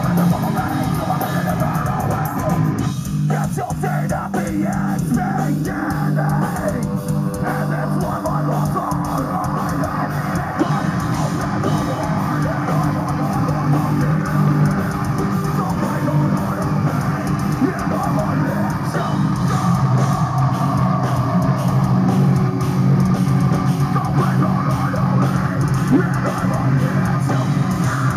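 Progressive metalcore band playing live: heavily distorted guitars and a drum kit, with screamed vocals over them. A few seconds in, the band plays a choppy stop-start passage before the full wall of sound comes back.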